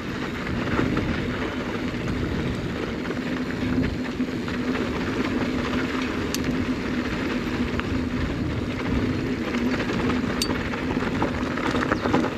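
Mountain bike descending a loose dirt trail: tyres rolling over dirt and wind rushing over the microphone, with a steady low hum.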